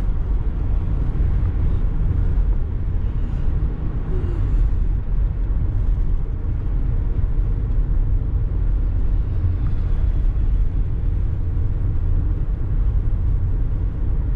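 Steady low rumble of engine and road noise inside the cabin of a moving vehicle.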